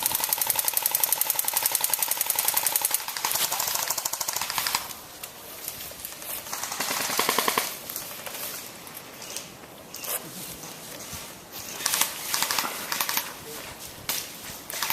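Airsoft guns firing in rapid bursts: a fast, unbroken stream of shots for the first three seconds, then shorter bursts and scattered shots with pauses between.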